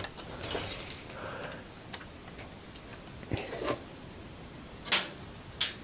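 Plastic cabinet of a small portable TV being handled and fitted back over its chassis: a handful of sharp plastic clicks and knocks, with a brief scraping rustle in the first second or so.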